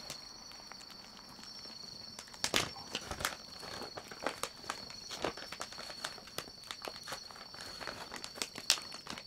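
Scattered light taps, clicks and rustles at an irregular pace, the loudest about two and a half seconds in and near the end, over a faint steady high-pitched whine.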